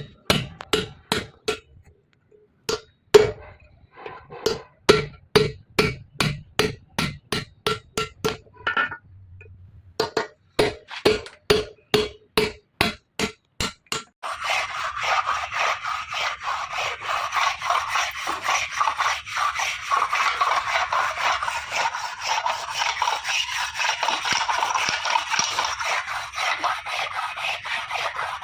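Rapid series of sharp taps, two to three a second with a couple of short pauses, as in light hammering on a part being repaired. About fourteen seconds in, this gives way to a steady rasping scrape, like filing or rubbing down metal.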